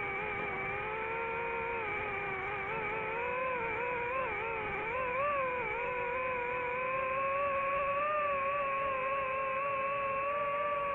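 DJI FPV drone's motors and propellers whining steadily in flight. The pitch wobbles with throttle and stick changes in the middle, then rises a little and holds higher from about seven seconds in as the drone speeds up.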